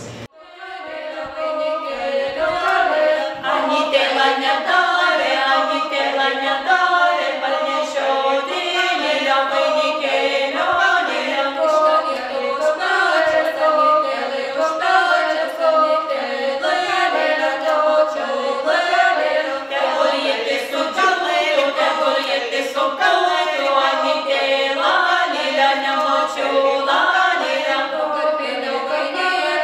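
A group of voices singing an unaccompanied song, one continuous sung passage with no instruments.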